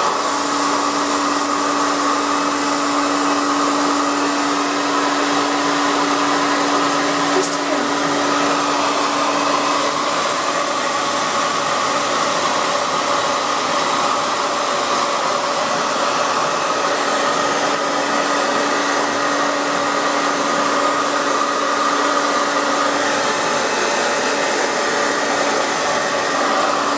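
Handheld hair dryer running steadily, a loud rush of air with a steady motor hum, blowing on a wet poodle's curly coat.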